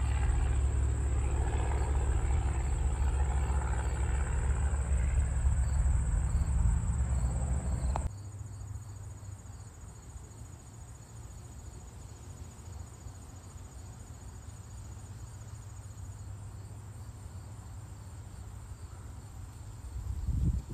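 Single-engine Cessna's piston engine and propeller droning steadily as it climbs out after takeoff, over a steady high insect buzz. About eight seconds in the engine sound cuts off abruptly, leaving the insects buzzing and chirping, and a short low thump comes near the end.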